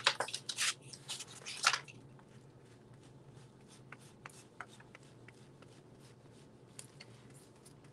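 Collage paper rustling and crinkling in several loud bursts as sheets are handled, then, from about two seconds in, quiet soft scrapes and faint ticks of a flat paintbrush being worked over the pasted paper.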